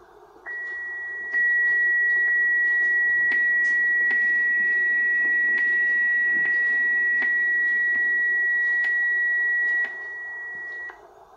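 A homemade Joker SDR receiver's audio output: one steady high beat tone, the sound of a continuous carrier tuned in, held for about ten seconds over a band of receiver hiss. The tone steps louder about a second in and falls back near the end before it stops. Faint clicks sound here and there.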